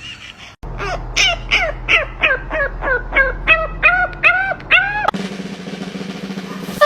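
An animal giving a rapid series of short pitched calls, about three a second, the later ones longer and arching up and down in pitch, lasting about four and a half seconds; then a steady low hum.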